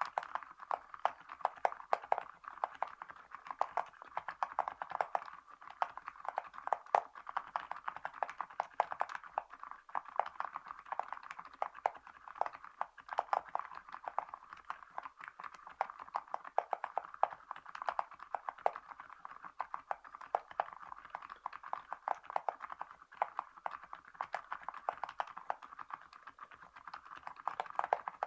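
Continuous typing on a Varo V87A mechanical keyboard fitted with solid metal Awekeys gold keycaps: a dense, steady stream of key clacks, several strikes a second.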